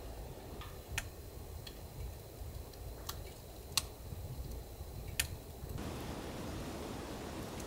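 Wood fire in a wood-burning stove crackling: a few sharp separate pops, the loudest nearly four seconds in, over a low steady rumble. Just before six seconds the pops stop and a steady even hiss takes over.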